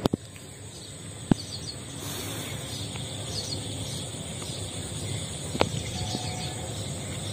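Outdoor ambience of steady background noise with a few faint bird chirps, broken by two sharp clicks, one about a second in and one past the middle.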